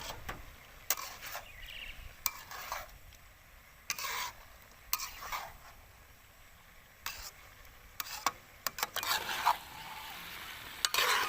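A utensil stirring and scraping in a pan of cooking pig blood, in irregular short strokes, over a light sizzle.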